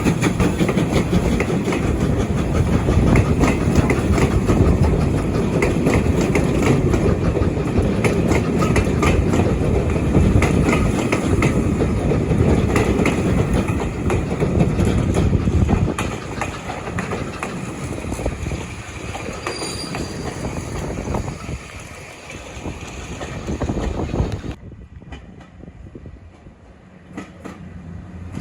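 Railway train running on jointed track, its wheels clicking over the rail joints under a heavy rumble. The sound is loud for the first half or so, then dies away.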